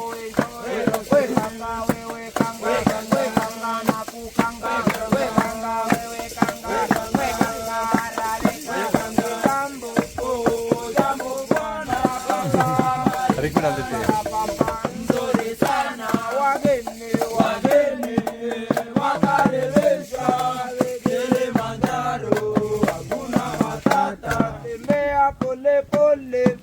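Singing to music with a shaken rattle keeping a steady rhythm.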